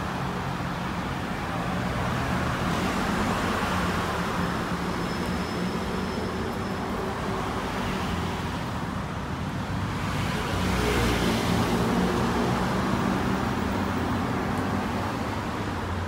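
Steady road traffic with low engine hum, a vehicle passing louder about two-thirds of the way through.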